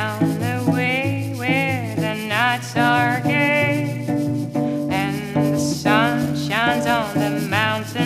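A woman's singing voice swooping up and down in pitch over a cello playing a repeating low figure, about two notes a second.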